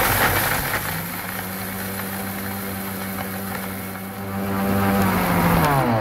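Electric mixer grinder (mixie) motor running at speed, grinding dry ginger, cardamom, coriander and dried herb powders into a tea powder. Near the end it is switched off and the motor winds down with a falling pitch.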